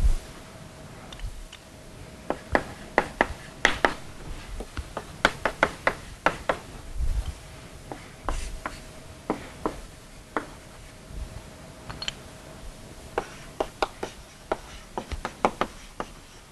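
Chalk on a blackboard, tapping and scratching in quick, irregular clusters of short strokes as a diagram and its labels are drawn, over a faint steady hum.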